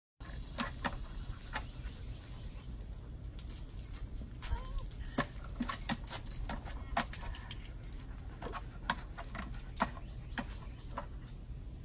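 Irregular light clicks and small metallic jingles from dogs moving on a concrete patio: claws tapping on the concrete and collar tags jingling, over a low steady background rumble.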